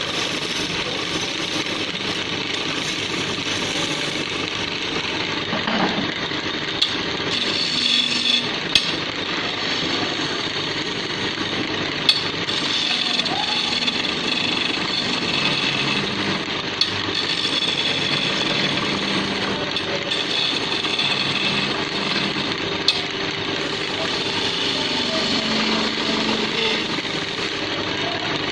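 Wood lathe running with a hand-held turning chisel cutting into a spinning wooden table leg: a steady scraping, rushing noise with a few sharp clicks.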